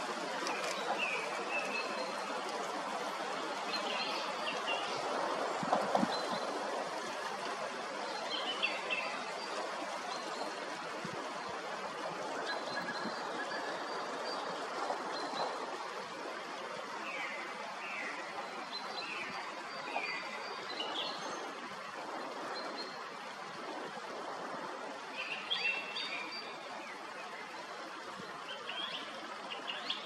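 Song thrush singing in short phrases separated by pauses, over the steady rush of a swollen spring forest stream.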